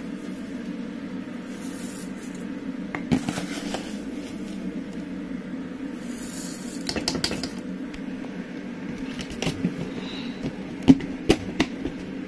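Dry long-grain rice scooped from a plastic tub and poured into a metal pot: a hiss of falling grains about two seconds in and again about six seconds in, then several sharp clicks and knocks of the plastic scoop against the pot and tub. A steady low hum runs underneath.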